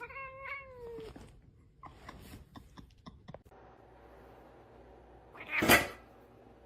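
A cat's drawn-out meow, falling in pitch as it ends, followed a few seconds later by one short, loud rushing noise.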